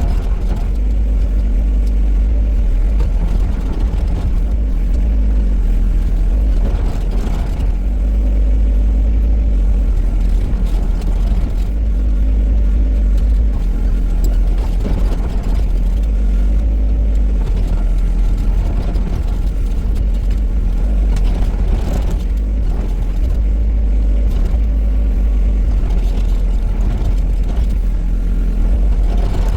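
Shantui STE35SR mini excavator's diesel engine running steadily under working load, with scattered cracks and crashes of old barn timber being pulled down.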